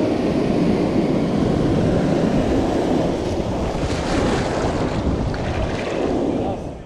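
Surf in the shallows: waves breaking and foaming whitewater washing around the feet, with wind noise on the microphone. The sound fades out near the end.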